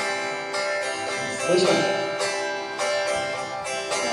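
Electric guitar playing chords through an amplifier, a fresh chord struck every half second or so with the notes ringing on. A man briefly asks "Слышно?" over it.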